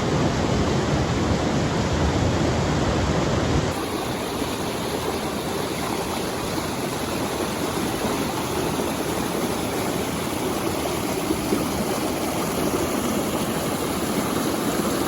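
Waterfall and creek water rushing steadily. About four seconds in the rush changes abruptly and loses much of its low rumble, then carries on evenly.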